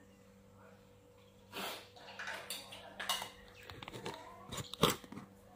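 Scattered small clinks and knocks of a meal eaten on the floor: a spoon against ceramic bowls, with a sharper knock near the end.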